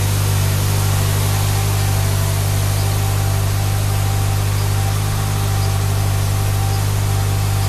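Ford Focus MK1's 1.6 Zetec four-cylinder engine idling steadily, heard from the driver's seat area: a constant low hum with an even hiss over it.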